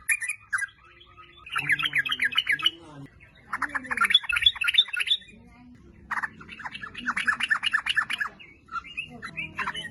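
Yellow-vented bulbul (trucuk) singing in four bursts of rapid chattering notes, each burst one to two seconds long, with short pauses between.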